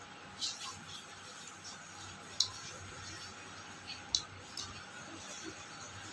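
Eating sounds from a meal of rice and fish: a few short, sharp smacks and clicks, about four, over a faint steady background.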